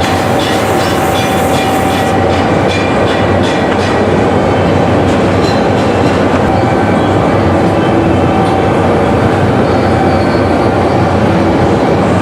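Steady, loud roar of glassworks machinery, with a faint held tone and light clinks in the first few seconds.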